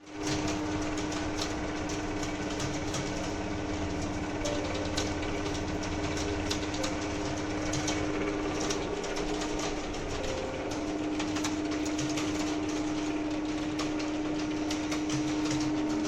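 Computer keyboards being typed on: a rapid, irregular clatter of key clicks over a steady electrical hum.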